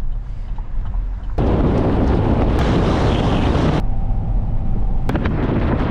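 Inside a moving car: a steady low rumble of road and wind noise, with a loud rush of wind from about a second and a half in to nearly four seconds, which starts and cuts off abruptly.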